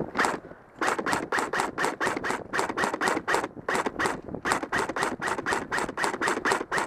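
Rapid footsteps crunching on rough ground, a person moving quickly at about four to five steps a second, with a brief pause just after the start.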